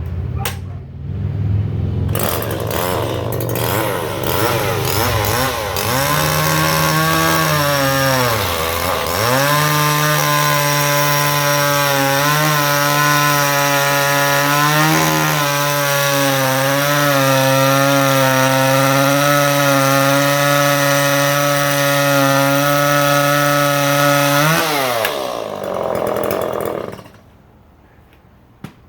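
Two-stroke Stihl chainsaw at full throttle cutting through a kiln-dried Douglas fir log. The engine pitch sags under load a few seconds in, then holds steady through the cut. Near the end the saw comes off and the sound drops away.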